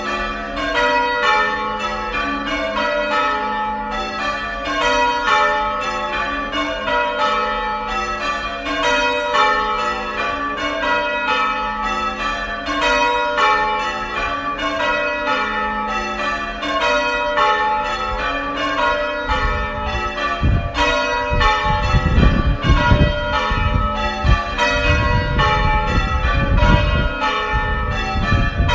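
Church bells being rung in changes, several bells striking in turn in a rapid, even rhythm. From about two-thirds of the way in, an irregular low rumble comes and goes under the bells.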